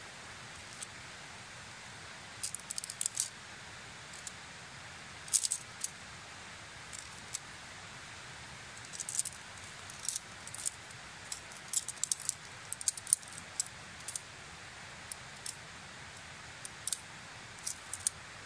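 Sectioned tent poles clicking and clattering as they are unfolded and fitted together, in scattered clusters of short, light clicks over a steady background hiss.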